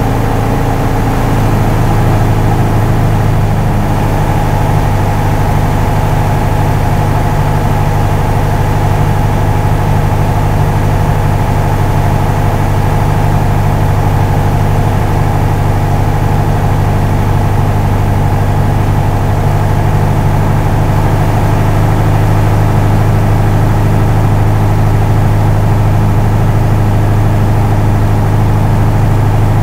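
Piper Warrior's four-cylinder Lycoming engine and propeller running steadily, a constant deep hum heard from inside the cabin.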